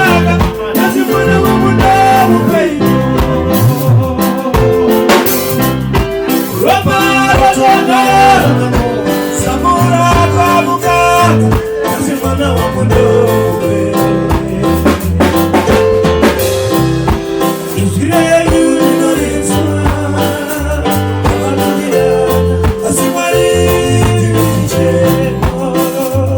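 Band music with guitar, bass and drum kit at a steady beat, with some singing.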